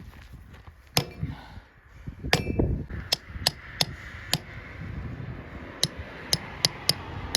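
Farrier's hammer striking metal: about a dozen sharp, slightly ringing blows in uneven groups, two or three at a time with short pauses between.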